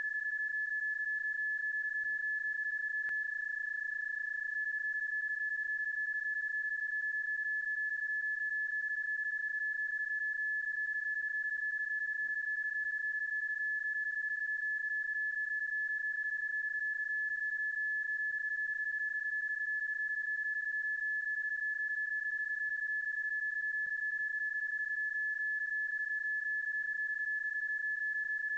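PSK31 data-mode audio: one steady tone. It is a stretched and looped sound effect, not the actual contact's signal, so it cannot be decoded.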